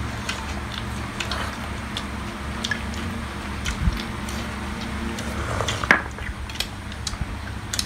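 People eating hot pot: slurping broth from bowls, chewing and lip-smacking, with light clicks of chopsticks against the bowls. There is a louder slurp just before six seconds in.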